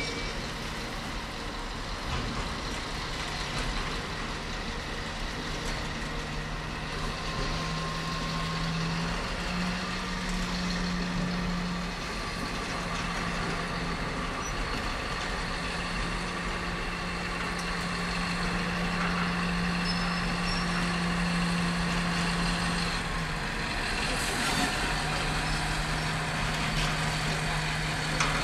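Diesel locomotive engine running with a steady low hum, slightly rising and falling in pitch, over the general rumble of a freight train in a rail yard.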